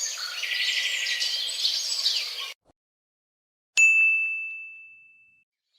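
Birds chirping, cutting off abruptly about two and a half seconds in. After a short silence, a single bright 'ting' chime strikes once and rings out, fading away over about a second and a half.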